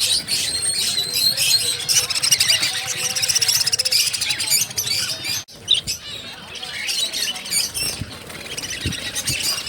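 A flock of many small birds chirping and twittering at once, a dense high-pitched chatter. It breaks off sharply for a moment about five and a half seconds in, then goes on.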